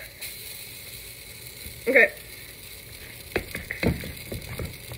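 Pancake batter sizzling steadily in a hot frying pan, with a few low knocks near the end.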